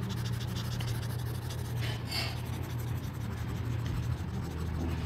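Stylus scratching and rubbing on a drawing tablet as on-screen handwriting is erased, over a steady low hum.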